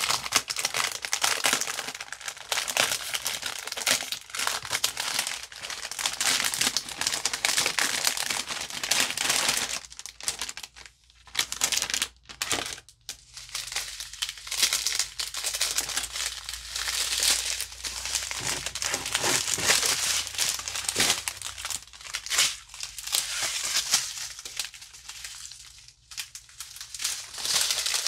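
Clear plastic packaging around a set of diamond-painting drill bags being crinkled and unwrapped by hand: a dense, irregular run of crinkling with a few short pauses.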